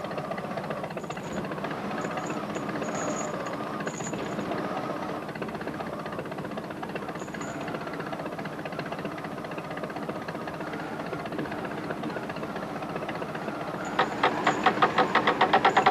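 Log lifter's engine running steadily. Near the end a louder, rapid rhythmic pulsing sets in.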